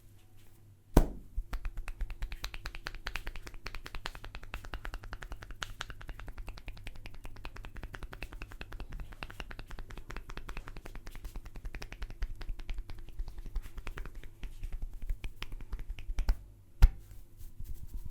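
Fast, continuous run of sharp hand taps and claps on the head during a barber's percussive head massage, many strikes a second. A single louder crack comes about a second in and another near the end.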